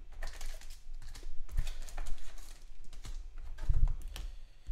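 Irregular clicks and taps of things being handled on a desk, with two low thumps, about one and a half seconds in and near four seconds in.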